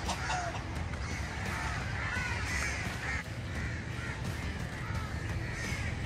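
Crows cawing several times over a steady low background rumble.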